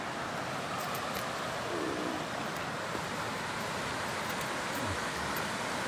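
Steady rush of river water spilling over a low stone weir.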